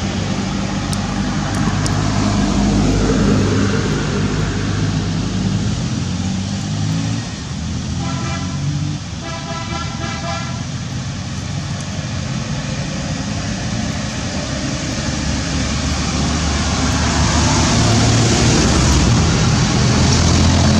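Vehicle engine noise: a steady low hum that grows louder near the end. About eight seconds in there is a pitched tone lasting two to three seconds.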